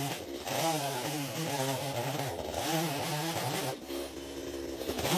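Chainsaw running under load while cutting wood, its engine pitch wavering, with a brief dip about four seconds in.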